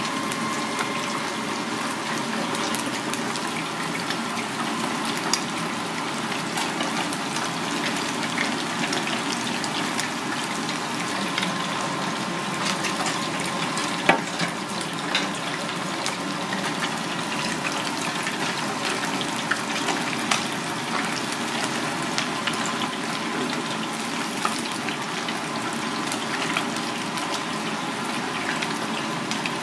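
Battered whole banana fish deep-frying in a fryer of hot oil: a steady sizzle with many small crackling pops. A few sharper clicks stand out, the loudest about halfway through.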